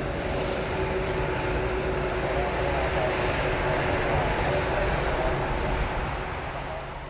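Airbus A320-200 jet airliner's IAE V2500 turbofan engines running, a steady rushing noise with whining tones, fading away near the end.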